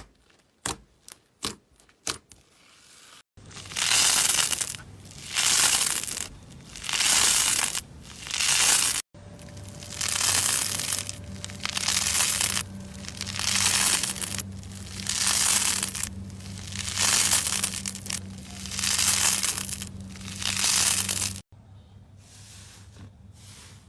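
Slime being poked, giving a run of sharp clicks, then worked by hand in a steady rhythm: a crackling, hissing squelch swells up about once a second, over and over.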